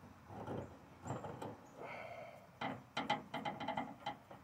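Hands twisting a porcelain lamp socket and its metal cup on a chandelier arm: a string of small clicks, knocks and scrapes, with a short high squeak about two seconds in.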